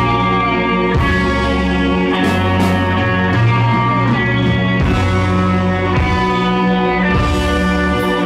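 A rock band playing loud and live: electric guitar, keyboard and drums, with held chords over a low bass line that changes note about once a second.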